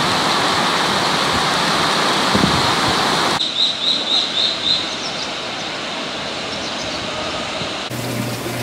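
Steady rush of water. After an abrupt change to softer water noise, a bird gives five quick high chirps. A low steady hum comes in near the end.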